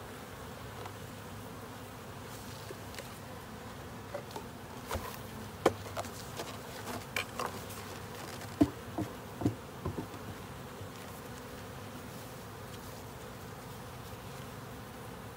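Honey bees at an open hive humming steadily. Between about four and ten seconds in come a run of sharp knocks and scrapes, the loudest two near six and nine seconds, as the wooden hive covers are handled and set in place.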